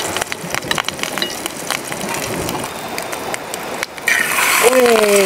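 Hot oil crackling and spitting in a small frying pan on a camping gas stove. About four seconds in, a fresh egg goes into the pan and a louder sizzle starts.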